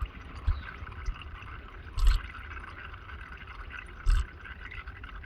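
Engine oil trickling and dripping from the sump drain hole into a catch container, a steady thin trickle with two short knocks about two seconds apart.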